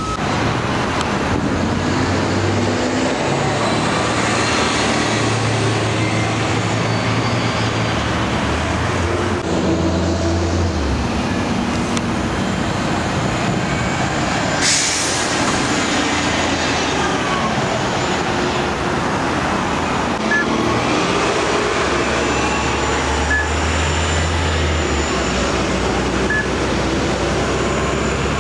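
Transit buses running at a street stop, their engines humming and changing pitch as they move off, with a brief sharp hiss of air about fifteen seconds in.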